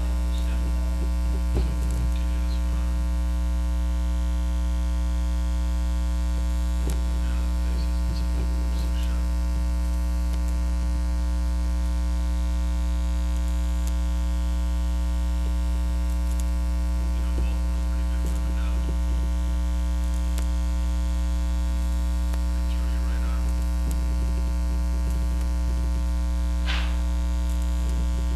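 Steady electrical mains hum with its overtones, unchanging throughout, with a few faint clicks, the clearest near the end.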